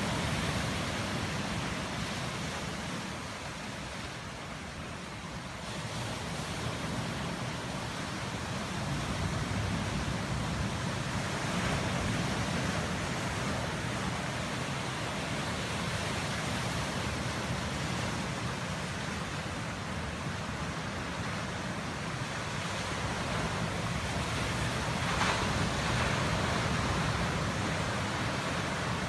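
Pacific Ocean surf breaking on volcanic lava-rock shoreline: a continuous rushing wash that swells and falls with each wave, easing for a few seconds near the start, with a louder crash about 25 seconds in.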